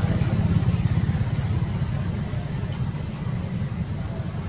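A motor vehicle engine idling: a steady low rumble with a fast even pulse that eases off slightly toward the end.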